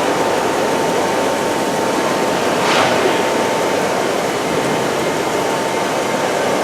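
Steady rushing roar with a thin constant tone running through it, and a brief sharper hiss nearly three seconds in.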